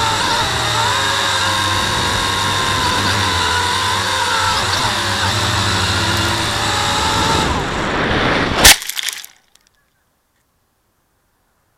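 V262 quadcopter's electric motors and propellers whining steadily, heard from its onboard camera, the pitch wavering as the motors work. A little after seven seconds in the whine fades as the power is cut, and about a second later there is a loud, sharp crash with brief crackling as the falling quad hits branches.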